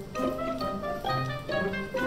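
Background instrumental music: a light tune of short melody notes over a bass line.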